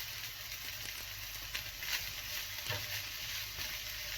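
Chicken gizzard pepper fry sizzling steadily in a pan over a low flame as the masala dries out, with a few short clicks of a spoon against the pan about halfway through.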